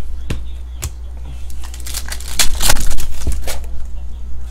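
Trading cards handled and flicked through by hand: sharp card clicks and rustles, thickest a little past the middle, over a steady low hum.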